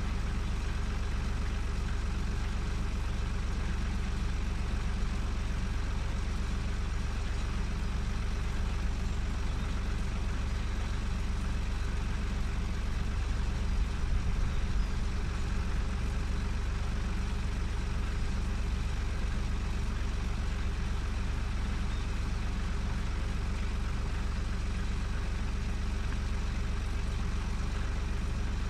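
Ford 3600 tractor's diesel engine idling steadily with a deep, even rumble, briefly louder about halfway through.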